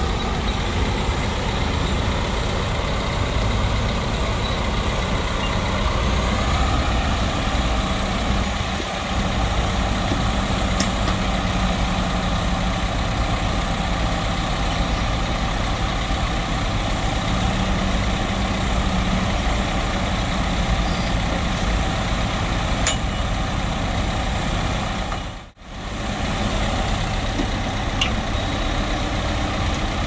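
Diesel engines of Caterpillar crawler bulldozers running steadily under load as they push soil. The sound cuts out briefly about three-quarters of the way through.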